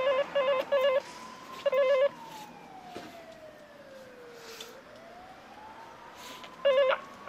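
Apartment door-entry intercom panel sounding its warbling electronic call tone in short bursts: three close together at the start, another about two seconds in, and one more near the end. In between, a faint tone falls slowly in pitch and rises again.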